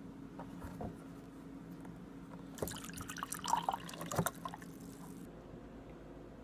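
Drink running from an insulated beverage cooler's push-button spigot into a plastic cup for about two and a half seconds, starting and stopping with sharp clicks of the tap.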